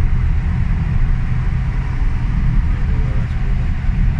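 Steady low rumble of a car driving through a road tunnel, heard from inside the cabin: engine and tyre noise with no marked changes.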